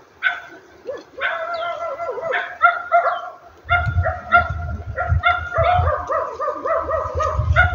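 Many short, high-pitched animal yelps and whines, one after another, with a low rumble joining about halfway in.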